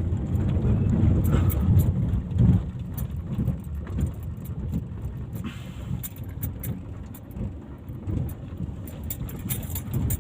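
A vehicle on the move: a steady low rumble with frequent light rattling clicks.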